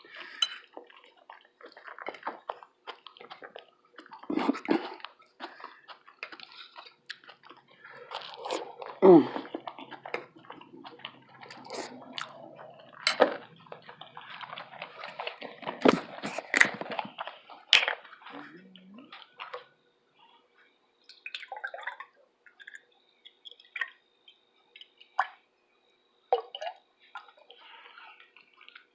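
Close-miked eating sounds: irregular wet chewing and mouth smacking, with a cluster of sharp clicks in the middle stretch.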